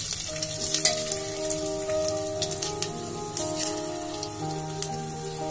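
Cumin and flax seeds, bay leaf, red chilli and ginger sizzling in hot ghee in an aluminium pressure cooker, with scattered sharp pops from the seeds. Soft background music with long held notes plays over it.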